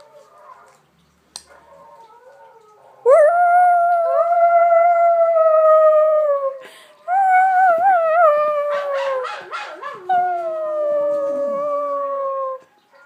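Dog howling: after a quiet few seconds, long drawn-out howls that each hold their pitch and sag slightly at the end, with a rough, broken stretch in the middle. Near the end a second, lower howl overlaps the first.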